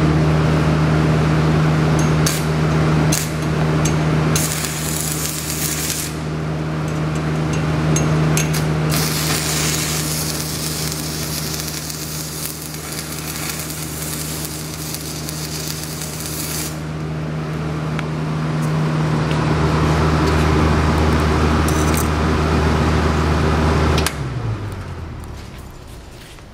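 Miller CP-252TS welding power source humming steadily, with the sizzle and crackle of an electric welding arc. There are short crackles, then a brief sizzle and a longer sizzling bead of about eight seconds. Near the end the hum drops in pitch and fades as the machine shuts down.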